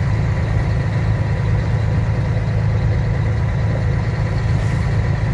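Truck engine and tyre noise heard from inside the cab while cruising on the highway: a steady low drone with a faint steady whine above it.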